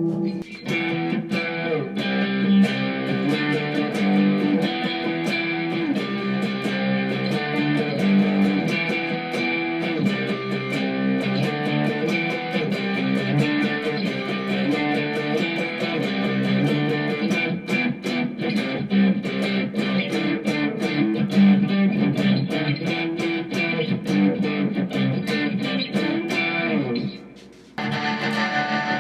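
Squier electric guitar played through an M-VAVE MK-300 multi-effects preset: a steady run of picked notes and chords. Near the end the playing drops off for a moment, then comes back with a brighter tone as the next preset starts.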